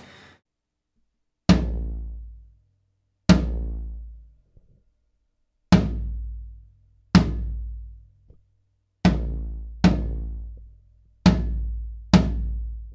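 Floor tom of a 7-ply maple Fibes kit struck with a stick, eight single hits spaced one to two seconds apart. Each is a low boom with a long ring dying away. The drum is being tuned between strokes to tame its heavy sustain and the vibration ring from the mic clamps.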